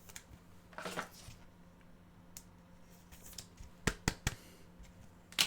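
Trading cards being handled: faint sliding and rustling, with a few sharp clicks of card on card, three of them close together about four seconds in.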